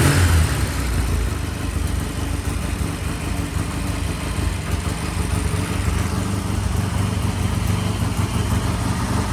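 Vintage British motorcycle engine idling steadily through new stock mufflers, with a brief swell in the first half second.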